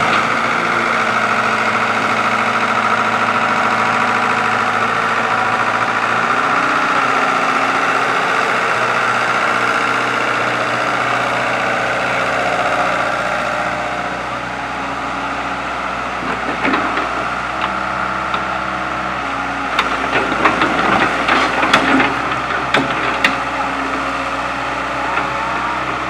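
Kobelco hydraulic excavator's diesel engine running under load as the machine swings and travels, with a steady whine over the first half. Sharp metallic clanks and knocks come and go in the second half as the steel tracks move.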